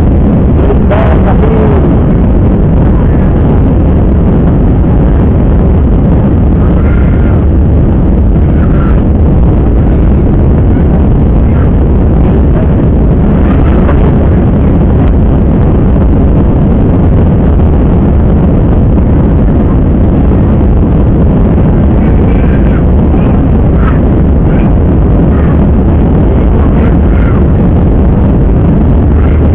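Steady loud rumble of an airliner's jet engines and airflow, heard from inside the passenger cabin.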